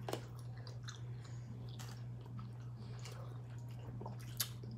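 Chewing and mouth sounds of people eating pizza and chicken wings: a scatter of soft, short clicks over a steady low hum.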